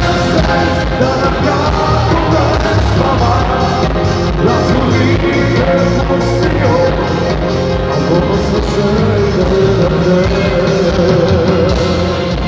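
Live amplified pop band with keyboards and a steady beat, a male voice singing over it, played through a PA in a large hall.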